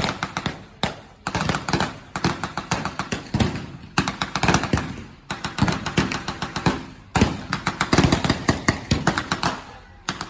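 Blank gunfire in a mock battle: rapid bursts of shots from a jeep-mounted machine gun and rifles, several shots a second, separated by short pauses.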